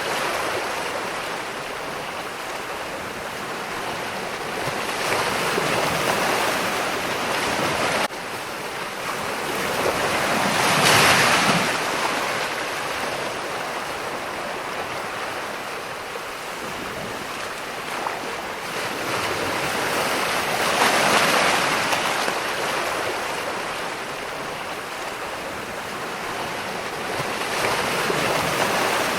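Ocean surf: waves breaking and washing in, a continuous rushing hiss that swells and falls in slow surges every several seconds, the biggest wave about a third of the way in. The level drops abruptly once, about eight seconds in.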